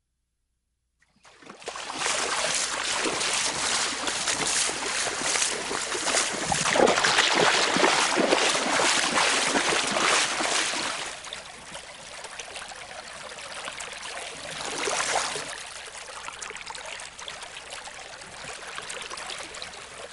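Running water, a stream flowing and splashing, starting after about a second of silence. It is loud for the first several seconds, then quieter, with a brief swell about fifteen seconds in.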